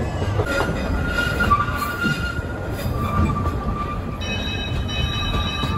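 Passenger railway car running slowly on a curve, with a steady rumble of wheels on rail. A thin wheel squeal comes and goes, and a higher squeal of several tones sets in about four seconds in.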